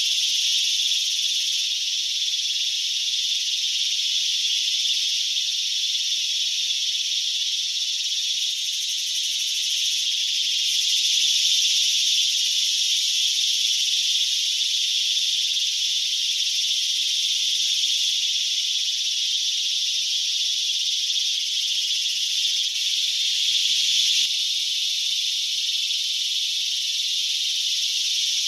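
A steady, high-pitched chorus of insects, an even unbroken buzz with no pauses.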